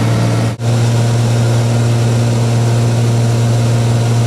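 Cessna 210's piston engine and propeller droning steadily in flight, with a very brief dropout about half a second in.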